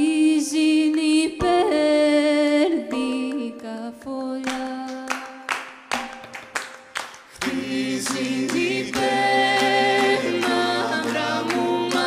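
Greek Macedonian folk song: a female lead voice sings the melody over a steady held drone note, and lower backing voices join in about seven and a half seconds in.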